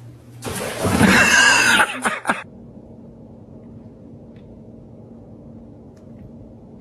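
A loud, rough vocal cry lasting about two seconds, ending in two short bursts, then only faint background.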